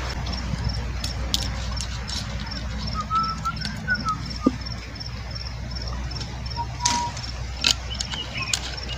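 Outdoor background of insects chirping, a high chirp repeated evenly a little under twice a second, with a short run of bird notes about three seconds in. Scattered sharp clicks and taps come from small objects being handled on a table.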